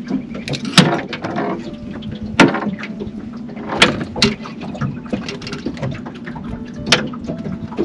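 A few sharp knocks and clatters, about five spread irregularly, over a steady low hum, typical of gear and a landed fish being handled in a small boat.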